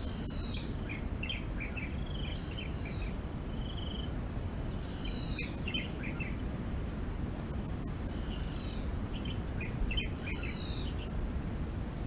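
Forest ambience: a steady, high-pitched chorus of insects, with a bird calling several times, each call a downward-sweeping note followed by a quick run of short notes, over a low background rumble.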